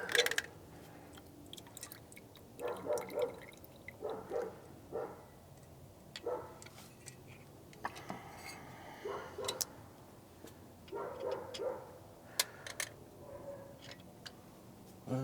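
Scattered light clicks and taps of tools and small metal carburetor parts being handled during disassembly, with a few short clusters of sound in between.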